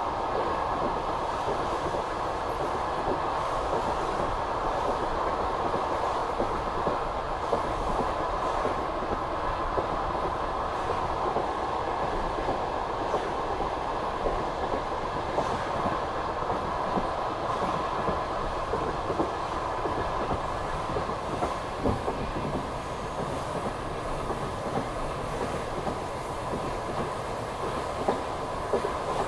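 Passenger train rolling along at speed: a steady rumble of the wheels on the track with repeated clacks as they pass over the rail joints.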